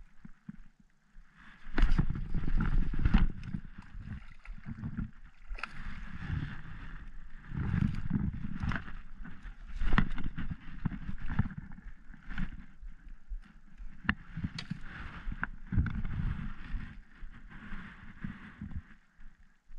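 Irregular rumbling and rustling with sharp clicks and knocks, starting about two seconds in: close-up handling noise on the camera as a largemouth bass is fought and landed from the bank.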